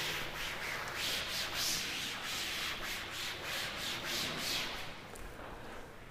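Cloth duster rubbing across a chalkboard, wiping it clean in quick back-and-forth strokes, about two or three a second, that stop about five seconds in.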